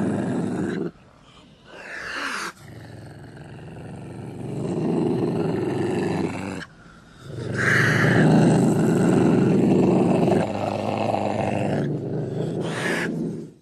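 Ocelot growling: low, rough growls in several spliced takes a few seconds each, broken by abrupt cuts, with a few short higher calls between.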